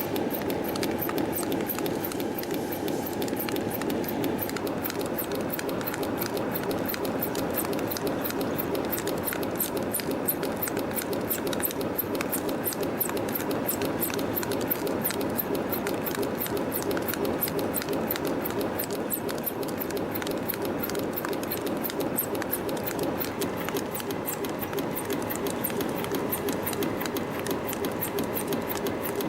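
YHM CF-310 CNC spring-coiling machine running in production, feeding 1.6 mm wire and cutting off springs at about 170 a minute. It makes a steady mechanical rattle with fast, even ticking.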